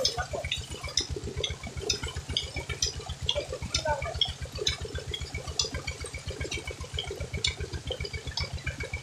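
Tubewell water gushing from the outlet pipe and splashing onto a man and a rope-strung charpai, over a steady, rapid low thumping.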